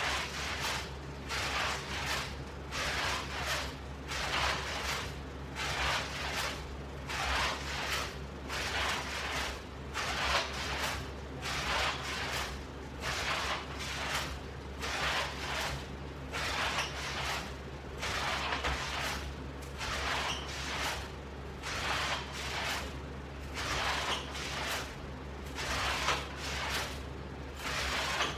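A person's rhythmic, effortful breathing during exercise repetitions, a breath about once a second, over a steady low hum.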